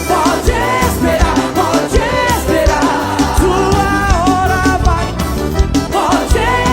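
Upbeat gospel praise song played by a band: a sung melody over a steady drum beat and bass.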